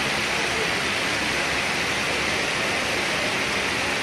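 Steady, even hiss of background noise with no distinct events, brightest in the upper-middle range.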